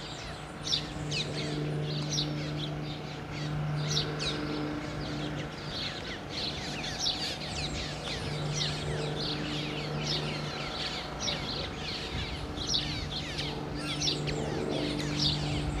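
Birds chirping all around, many quick downward-sweeping chirps repeating, over a steady low hum.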